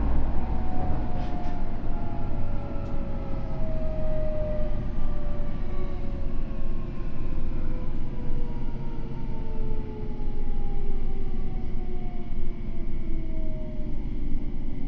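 Tokyo Metro new 05 series train's Hitachi IGBT inverter and traction motors whining in several tones that slowly fall in pitch as the train slows, over the steady rumble of wheels on rail, heard inside the car.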